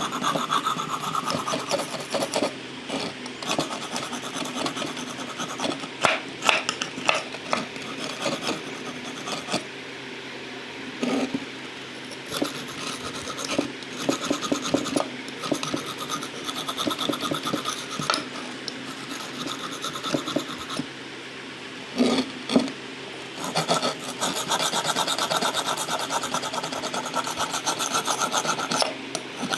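Repeated hand scraping and rubbing strokes on the rusted adze, with a few sharp knocks and short pauses between bouts.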